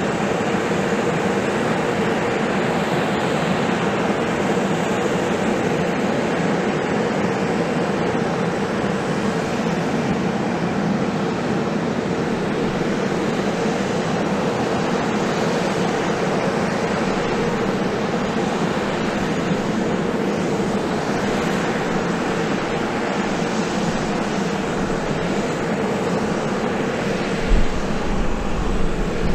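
A USAF CV-22 Osprey tiltrotor's turbines running steadily on the ground, a constant whine-and-rush with a low hum. A few brief low bumps come near the end.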